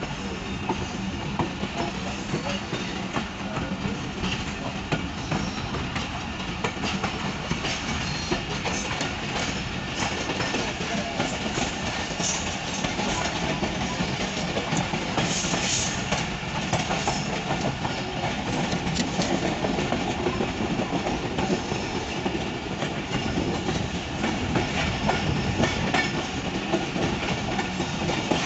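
Passenger coach of an express train running at speed, heard from an open doorway: a steady rumble and rush with rapid, irregular clicking and clattering of the wheels over the track.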